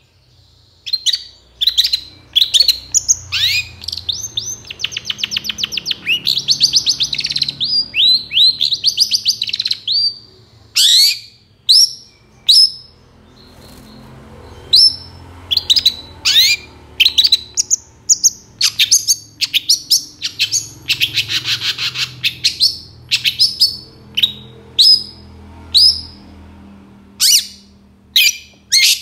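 Long-tailed shrike (cendet) singing vigorously, starting about a second in: a rapid series of sharp, downward-slurred call notes, broken twice by longer harsh, rattling chatters.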